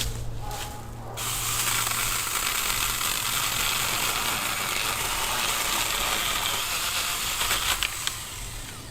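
Saker 20-volt cordless mini electric chainsaw cutting through a log. The chain and wood noise starts about a second in, runs steadily for about seven seconds, then stops shortly before the end.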